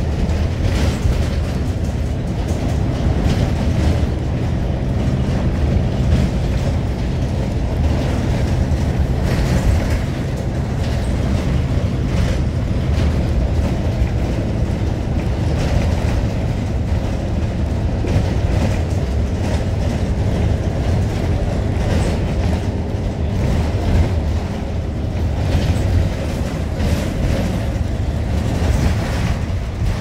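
Cabin noise inside a moving transit bus: a steady low engine and road rumble, with frequent short clicks and knocks from the rattling bus.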